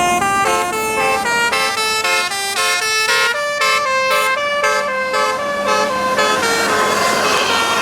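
Bus 'telolet basuri' multi-tone musical air horn playing a fast melody of short, stepped notes. The tune stops about six and a half seconds in, leaving a steady noisy rush.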